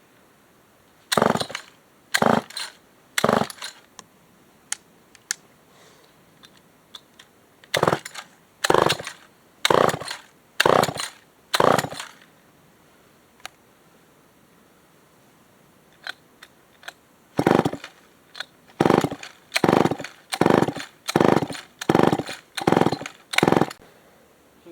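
Old Remington SL9 two-stroke chainsaw being pull-started: the recoil starter is yanked about fifteen times, each pull a short cranking whirr, in three runs of three, five and seven pulls about a second apart, with small clicks between. The engine does not catch.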